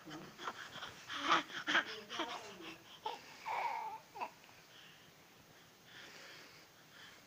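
Infant babbling and cooing, a run of short vocal sounds with rising and falling pitch over the first four seconds or so, then fading to faint sounds.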